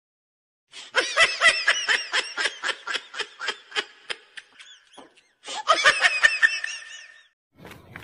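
High-pitched laughter in rapid 'ha-ha-ha' pulses, about four a second, fading over some three and a half seconds. A second, shorter burst of laughter starts about five and a half seconds in.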